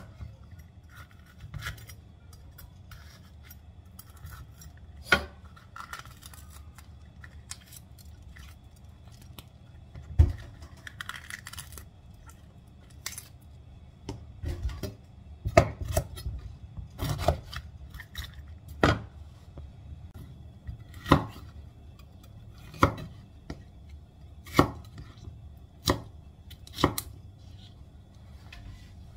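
Chef's knife slicing a red bell pepper on a wooden cutting board, the blade knocking on the board with each cut. The cuts are sparse at first, then come steadily about every second and a half to two seconds in the second half.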